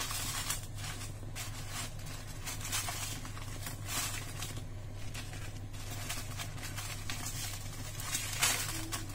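Dried red chillies rustling and crackling as a hand turns them over in a dry pan while they roast, in irregular crinkly bursts over a steady low hum.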